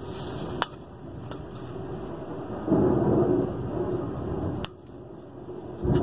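Thunder rumbling low, swelling about two and a half seconds in and cut off abruptly with a sharp click; another rumble starts at the end.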